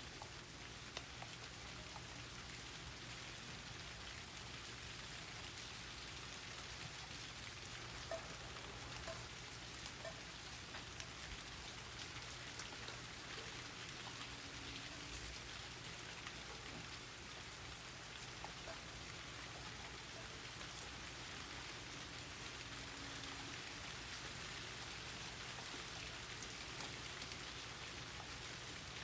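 Steady rain falling in a garden, an even hiss with scattered sharper drips.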